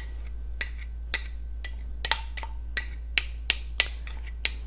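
A metal spoon clinking against a small glass cup as it scoops and scrapes out its contents: about a dozen sharp, irregular clinks.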